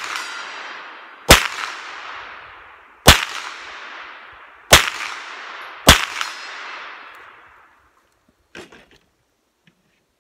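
Four single shots from a shoulder-fired long gun, about one and a half seconds apart, each followed by a long echoing tail. A short, fainter clatter comes near the end.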